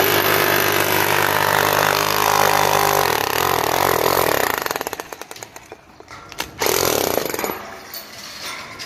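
Angle grinder cutting into a stone facade slab, loud with a wavering pitch as the disc bites. About four and a half seconds in it is released and spins down to a rapid ticking, then is triggered again for a short burst.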